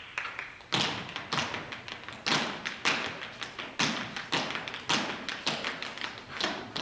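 Tap shoes striking a stage floor as a small group of dancers tap a rhythm: sharp metal taps and heavier stamps in an uneven pattern, with loud accents about every half second to a second and lighter taps between.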